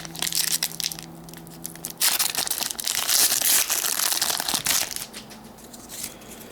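Wrapper of a 2014-15 NBA Hoops basketball card pack being torn open and crinkled by hand. The crinkling is loudest for about three seconds in the middle, then drops to quieter rustling.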